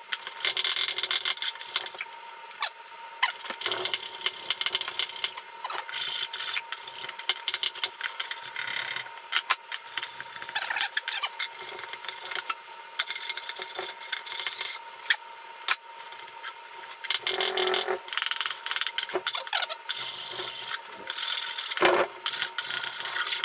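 Sandpaper on a wooden sanding stick rubbed by hand over plywood, in quick irregular back-and-forth strokes.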